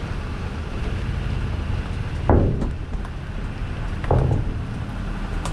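Car rolling slowly with a steady low engine and road rumble. Two heavy clunks come about two seconds apart as the wheels cross the steel ramp joints onto the ferry deck.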